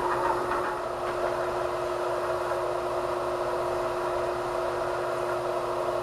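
Worn bench belt sander running with a steady hum. In the first second or so, a cast-iron pitcher-pump part is pressed lightly against the moving belt, which is sanding its mating face flat.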